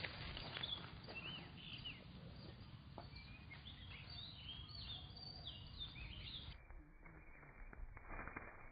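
Faint outdoor background noise with a run of short, high chirping calls that stop about six and a half seconds in. After that only a duller background with a few light clicks is left.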